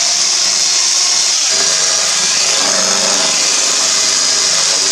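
Electric hand mixer running steadily, its beaters whisking eggs and sugar into a pale, foamy batter.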